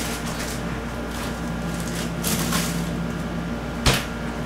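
Kitchen handling noises over a low steady hum: a soft rustle or two, then a single sharp knock a little under four seconds in.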